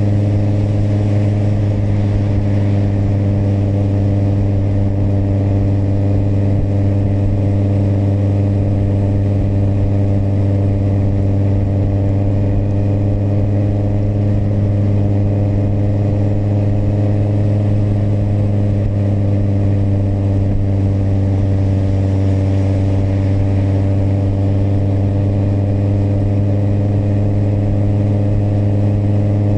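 Kawasaki motorcycle engine running at a steady cruising speed, a constant drone with no change in revs.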